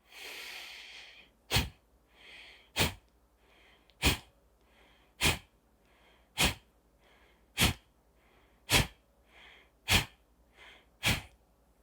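A man's breathing exercise of slow inhalation and fast exhalation: one long in-breath, then nine sharp, forceful out-breaths about one every 1.2 seconds, each pushed out by a stroke of the stomach, with a faint in-breath between them.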